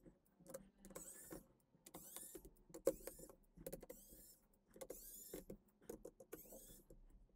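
Faint squeaks and small clicks of a screwdriver turning screws out of a Gamakay LK67 mechanical keyboard's case, a short squeak about once a second, six or so times.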